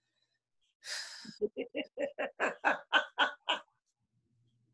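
A woman laughing: a breathy intake about a second in, then a quick run of about ten short 'ha' pulses that stops about three and a half seconds in.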